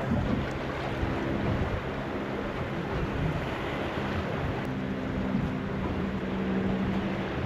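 Boat motor running under way, with wind and water rushing past; a low steady hum comes forward in the second half.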